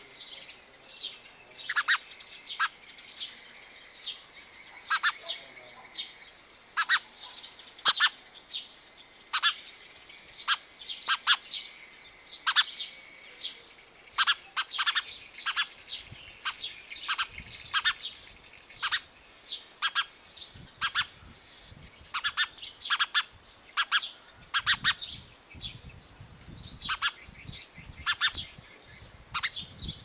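House sparrow chirping: many short, sharp chirps at uneven intervals, often in quick pairs or threes.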